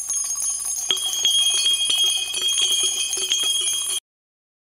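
Logo-intro sound effect of shimmering jingling bells: a dense tinkle with high ringing tones that swell about a second in. It cuts off suddenly about four seconds in.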